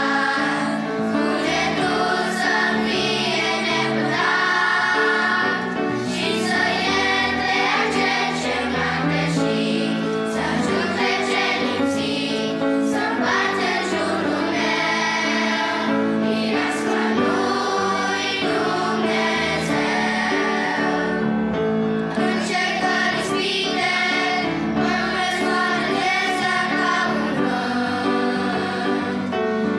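Children's choir singing a Christian song in Romanian, accompanied by a grand piano.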